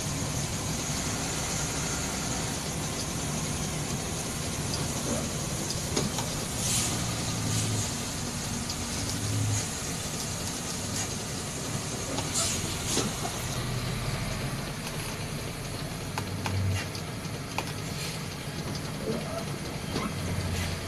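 Bus engine running under load with road and tyre hiss on a wet road, heard from inside the bus cabin as it crawls uphill in slow traffic; the low engine hum swells now and then, with a few short knocks.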